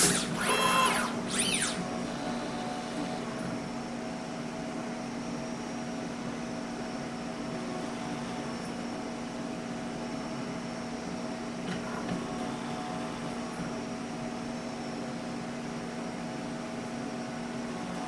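Automatic soldering robot at work: its motors whine in short rising and falling sweeps during the first two seconds as the axes move, then a steady machine hum runs on, with a small click about twelve seconds in.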